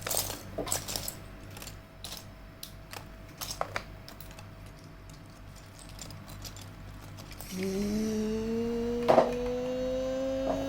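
Plastic toy and Lego pieces clicking and knocking as they are handled. About seven and a half seconds in, a voice starts humming one long note that slowly rises in pitch.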